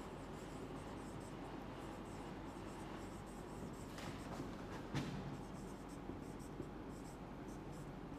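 Faint scratching of a marker pen writing on a whiteboard, in short strokes, with a light tap about five seconds in.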